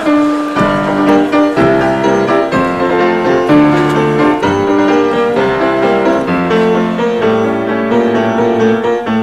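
Piano playing the introduction of a tango, chords struck in a steady rhythm with no singing yet.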